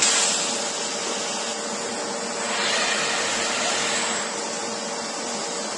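Busellato CNC woodworking machine running: a steady hiss and hum with a few constant tones underneath, swelling slightly about halfway through.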